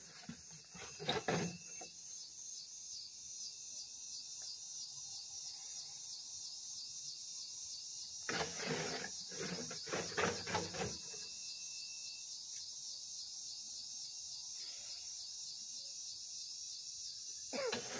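Steady insect chorus with a fast, even pulsing trill, broken by two spells of loud scraping strokes: a hoe working concrete mix in a wheelbarrow. The first spell comes in the first two seconds, the second about eight to eleven seconds in.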